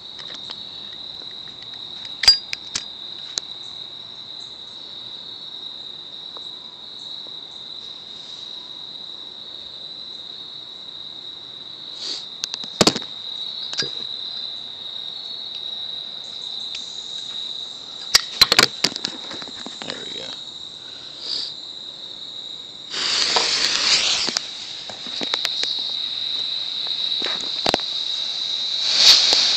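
Crickets chirring steadily at a high pitch, with a few scattered sharp clicks. About 23 seconds in, a homemade sugar and potassium nitrate smoke grenade ignites with a burst of hissing, then hisses steadily as smoke pours out, louder near the end.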